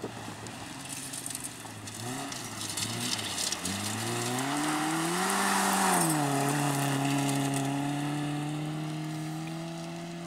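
Volvo rally car's engine revving hard through the gears, its pitch climbing in steps and loudest as the car passes about six seconds in, with gravel hissing under the tyres. The revs then drop and it holds a steady note as it pulls away.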